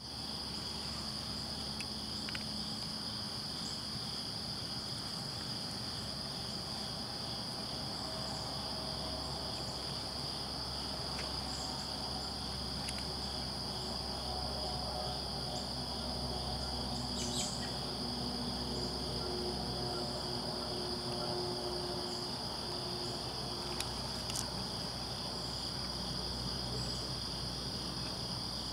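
Steady chorus of insects such as crickets, a continuous high-pitched trilling in the woods, with a couple of faint clicks.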